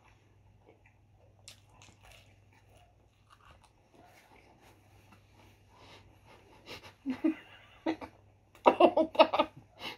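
People chewing pizza with wet mouth clicks, quiet at first and louder over the last three seconds. Near the end comes a quick run of short, loud sounds, about five a second.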